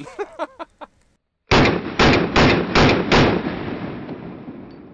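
Semi-automatic pistol fired five times in rapid succession, all within about two seconds, triggered with the off-hand finger through the trigger guard. The shots start about a second and a half in, and their echo dies away slowly afterwards.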